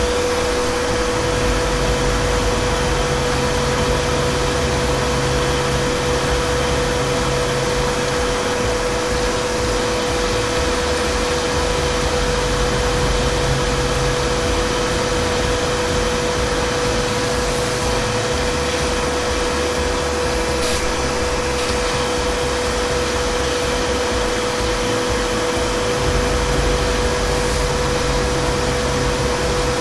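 Wabeco F1200 milling machine, converted to CNC, running under program control: the spindle turns at 8000 rpm with a steady high whine while the cutter feeds slowly along the Y axis, cutting a 1 mm deep slot. A lower hum comes and goes every few seconds under the whine.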